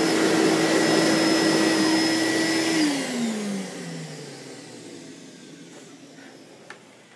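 Vacuum cleaner running steadily, then switched off about three seconds in: its motor whine falls in pitch as it winds down, and the sound fades away.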